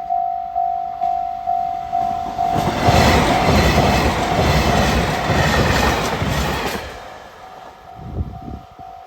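Level-crossing warning bell ringing in steady dings, about two a second. About two and a half seconds in, a train passes over the crossing: a loud rush with rhythmic thumping of wheels over the rail joints. It fades after about seven seconds while the bell keeps ringing.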